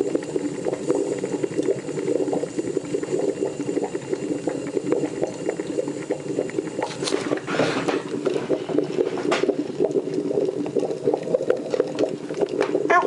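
Sunbeam C30 Coffeemaster vacuum coffee maker boiling and bubbling steadily, its heater switched to low. A few sharp ticks come through the bubbling, about seven and nine seconds in.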